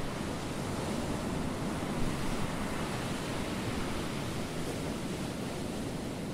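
Steady rush of ocean surf washing onto the beach.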